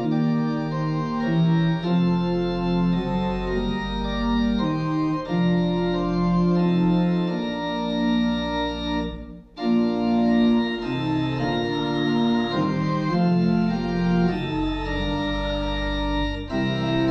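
Church organ playing a hymn tune in held chords that change every second or so, with a short break about nine and a half seconds in, most likely the introduction before the congregation sings.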